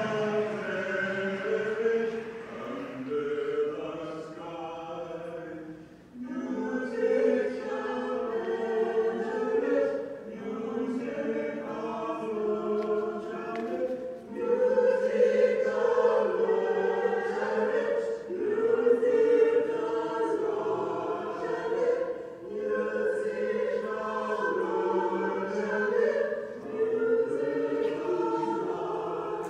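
A choir of many voices singing together, in sung phrases with short pauses between them.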